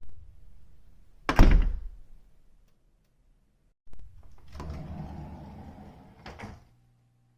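A door being closed and opened: a heavy shutting thud about a second and a half in, then a couple of seconds of rattling, rubbing noise as the door moves, ending in a short clack near the end.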